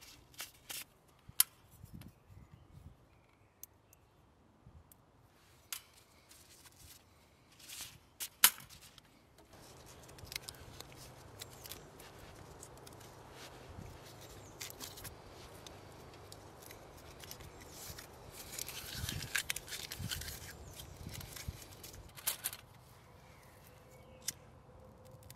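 Sharp clicks and knocks of camping kit being handled, then a knife scraping and shaving dry wood into curls for tinder, with the scraping loudest a little past the middle.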